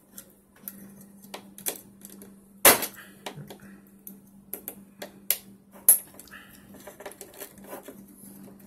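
Needle-nose pliers clicking and scraping against the wire retention clips of a Dell T5500 motherboard's chipset heatsink as the clips are unhooked from their holders: a run of irregular sharp clicks, with one much louder click a little under three seconds in.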